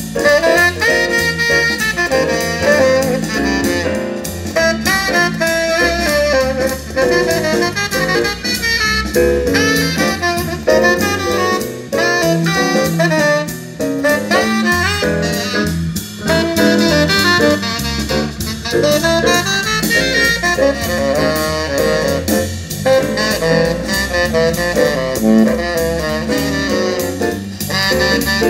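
Saxophone-led jazz played through a pair of Infinity RS 1001 two-way bookshelf speakers, with a steady beat underneath.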